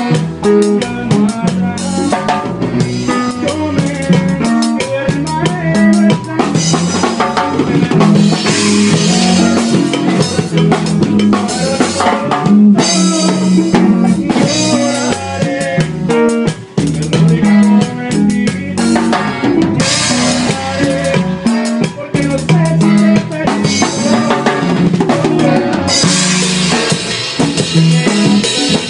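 Live band playing a song with button accordion, acoustic guitar and drum kit, the drums driving a steady beat throughout.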